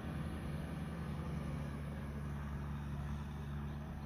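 Kubota M6040 tractor's diesel engine running steadily as the tractor drives through the muddy paddy with its implement.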